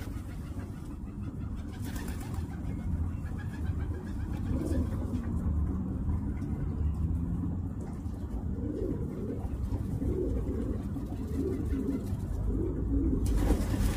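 Feral pigeons cooing: low coos about four seconds in, then a run of repeated coos from about eight seconds on, over a steady low rumble.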